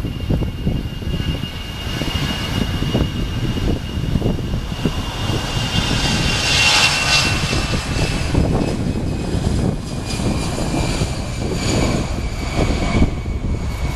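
Airbus A319 jet airliner's engines passing, a whine that swells to its loudest about halfway through and slowly falls in pitch as it goes by. Wind buffets the microphone throughout.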